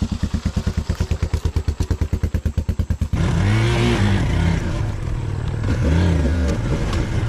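Single-cylinder dirt bike engine idling close by with a fast, even pulsing beat. About three seconds in the sound switches abruptly to the rider's own Kawasaki KLX150 single-cylinder engine, revving up and easing off twice as it moves along the dirt track.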